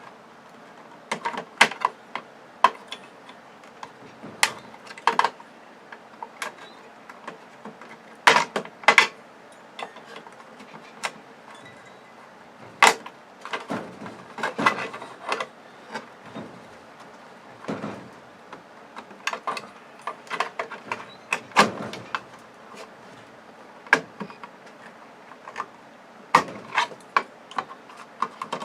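Irregular clicks, clinks and rattles of hand tools and thin sheet-metal shielding being worked off a TV's circuit board.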